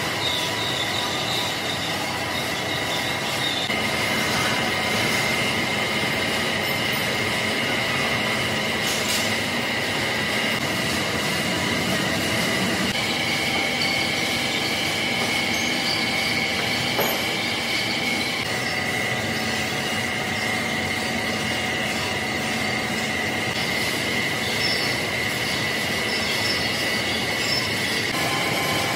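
Large engine lathe turning a big metal shaft, the cutting tool shearing off chips with a steady high-pitched squeal over the machine's running hum. The squeal jumps to a new steady pitch a few times.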